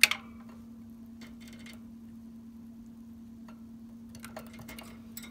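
Masked lovebird's beak pecking in a clear plastic food dish of seeds: scattered sharp clicks, the loudest right at the start, then small clusters of clicks about a second in and near the end.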